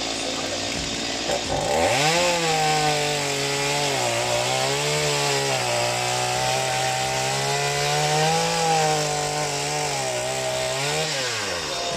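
Chainsaw engine throttled up from a low run about two seconds in, held at high revs with slight dips in pitch for about nine seconds, then released, its revs falling away near the end.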